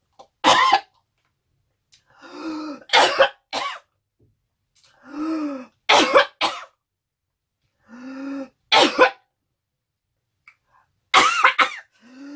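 A woman coughing hard in repeated fits, about eight sharp coughs a few seconds apart, each set preceded by a strained, voiced gasp. She is choking on ice cream that went down the wrong way.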